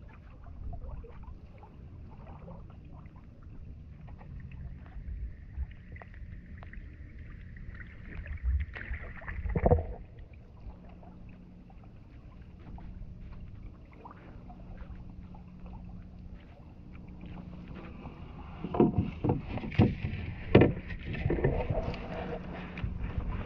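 Canoe being paddled: water sounds and small clicks from the strokes, with a few sharp knocks on the canoe's hull, one about ten seconds in and a cluster of several near the end.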